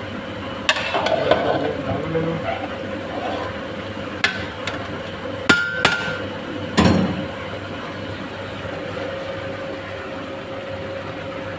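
Metal cookware knocking and clanking: about six sharp, separate strikes, mostly in the first half, over a steady hum.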